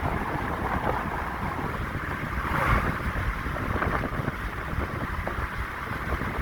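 Wind buffeting the microphone: a steady rushing noise with heavy rumble, swelling slightly about two and a half seconds in.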